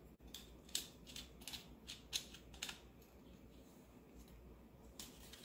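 Faint small metal clicks of a wing nut being turned by hand onto the threaded stud of a Vitamix FoodCycler lid's steel filter plate. The clicks come in a loose string over the first few seconds, with one more near the end as the lid is handled.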